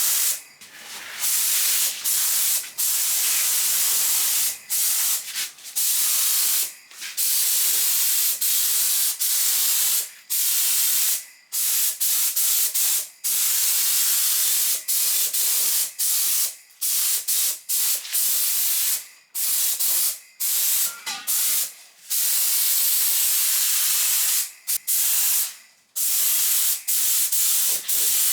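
Paint spray gun spraying two-pack paint: a steady hiss in repeated passes of one to a few seconds, broken by short pauses each time the trigger is let go.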